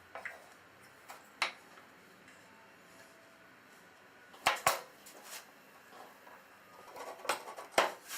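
Scattered light knocks and clicks of small wooden parts and tools being handled on a workbench. Two sharp knocks come about four and a half seconds in, and a quick run of knocks near the end.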